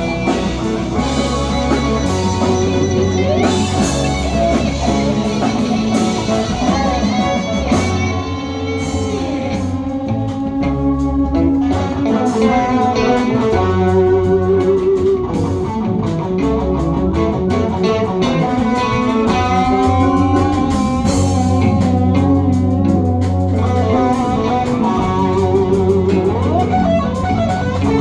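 Live rock band playing instrumental music: electric guitar over bass guitar and drums.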